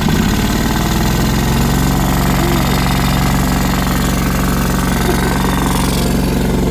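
John Deere 425 riding mower's engine catching right at the start and then running steadily at an even speed. It runs now that the airlock in its fuel line is cleared and the carburettor is filled with fuel.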